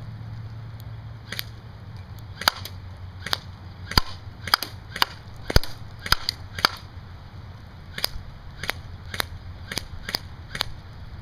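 Airsoft M733 Commando rifle firing about fifteen single shots, sharp snapping cracks spaced a half second to a second apart with a pause of over a second in the middle. A steady low rumble of wind and rain runs underneath.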